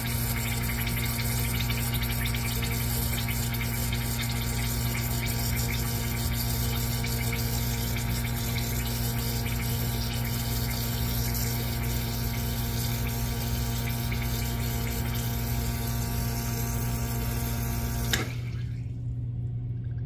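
La Marzocco Linea Micra espresso machine's pump running with a steady hum as it pushes brew water through a Scace thermometer portafilter during a brew-temperature test. About 18 seconds in it stops with a click and the water noise drops away, leaving a lower hum.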